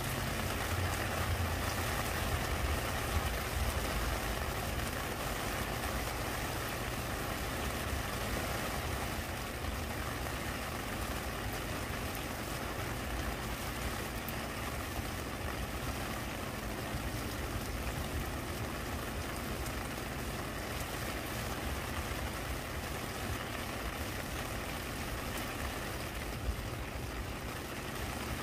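Steady rain falling on a wet stone and plant leaves: an even hiss of drops, with a low rumble underneath.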